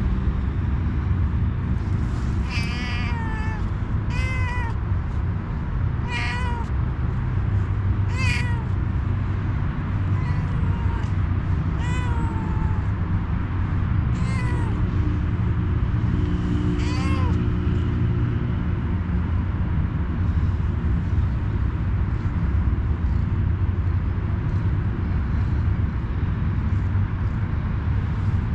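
Tabby-and-white cat meowing over and over, about eight short calls roughly two seconds apart, then falling quiet for the last ten seconds or so. A steady low rumble runs underneath.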